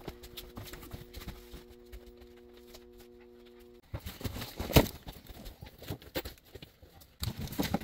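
Footsteps and the knocks and scrapes of a large cardboard box being carried, with one sharp knock about five seconds in. A steady hum sounds for the first few seconds and cuts off suddenly.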